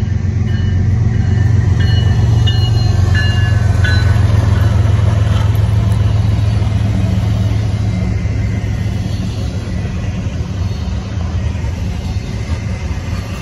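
Two BNSF diesel-electric freight locomotives pass close by with a deep, steady engine rumble, loudest a few seconds in, then double-stack intermodal container cars roll past as the rumble slowly eases. A few brief high squeals sound in the first few seconds.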